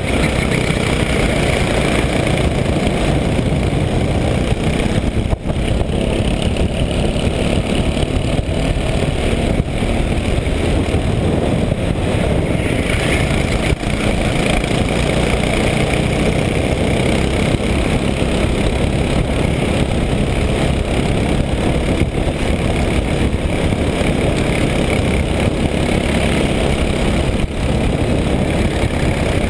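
Racing kart engine running hard through a lap, picked up by the onboard camera on the kart, loud and steady with a couple of brief dips.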